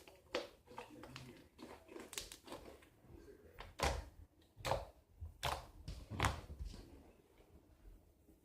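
Hands squishing and poking homemade fluffy slime, giving irregular small crackles and pops. In the middle comes a run of four louder pops, about one a second.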